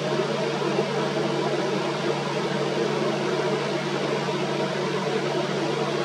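Steady low hum with an even hiss over it, unchanging throughout; no bird calls are heard.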